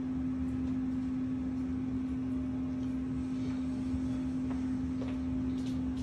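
A steady hum at one constant pitch, with a low rumble beneath it and a few faint ticks.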